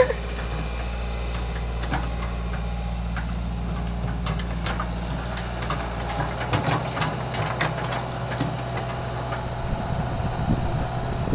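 Hitachi excavator's diesel engine running steadily, with scattered short knocks from the working machine. About six and a half seconds in, the engine note changes and the knocks come more often.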